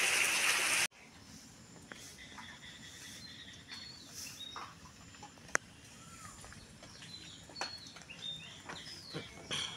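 A loud rushing noise cuts off abruptly about a second in. Then come scattered short bird chirps over a quiet rural background, with one sharp click midway.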